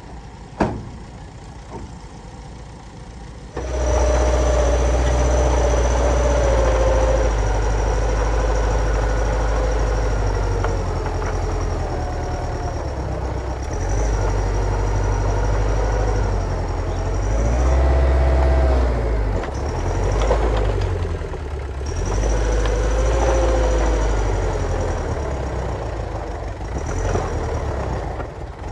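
Heavy diesel construction machinery running, a deep steady rumble with its pitch rising and falling as the load changes and a thin high whine over it. It comes in abruptly a few seconds in, after a quieter stretch with a couple of sharp knocks.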